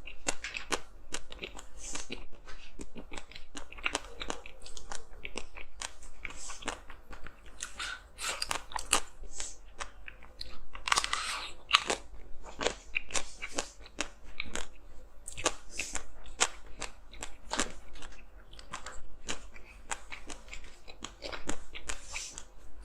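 A person biting and chewing hard frozen ice close to the microphone: a rapid, irregular run of sharp crunches and cracks, with a longer, heavier crunch about eleven seconds in.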